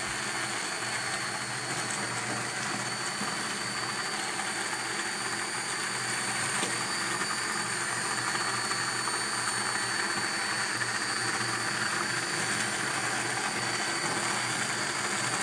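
Immersion hand blender running steadily with a constant high-pitched whine over a churning liquid noise, puréeing a chunky vegetable and red pepper sauce until smooth in a frying pan.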